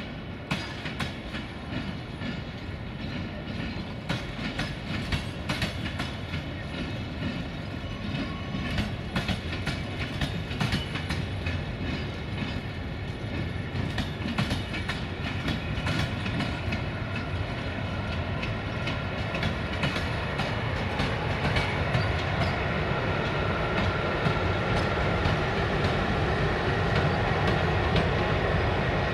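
A 060-EA1 electric locomotive shunting a rake of passenger coaches slowly through the station, the wheels clicking irregularly over rail joints and points over a steady rumble. It grows gradually louder as the train draws closer.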